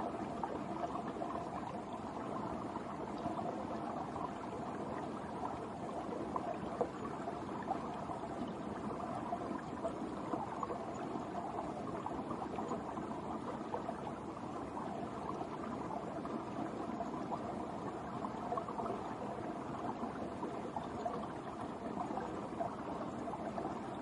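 Brook water running under winter ice: a steady flow of water with constant small trickles, no single event standing out.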